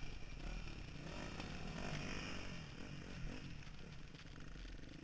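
Motocross bike engine heard from on board, its pitch rising and falling as the rider works the throttle, under a steady rush of wind and noise.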